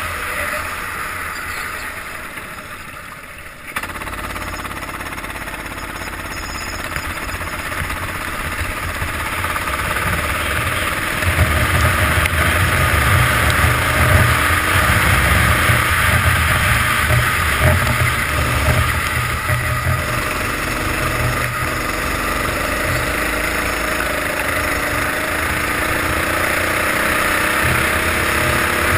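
Kart engine heard from the kart itself while lapping a wet track. It drops away briefly a few seconds in as the throttle is lifted, then picks up again and runs loud, its pitch rising and falling through the corners.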